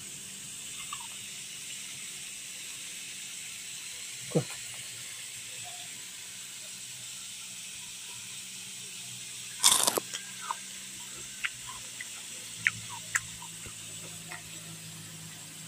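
Steady hissing background noise with scattered sharp clicks and knocks; the loudest is a short clatter just before ten seconds in.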